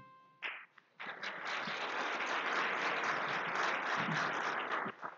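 Audience applauding: after a single short knock, clapping starts about a second in and stops abruptly shortly before the end.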